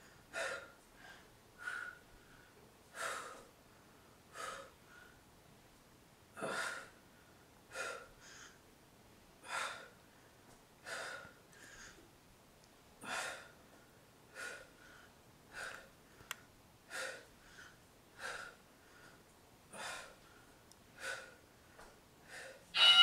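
A woman breathing hard through a set of weighted crunches, with a short, forceful exhale roughly every second or so.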